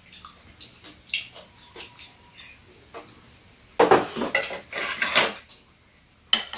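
Metal spoons clicking against bowls and dishes during a meal, light scattered ticks at first, then a louder stretch of clatter about four seconds in lasting a second and a half.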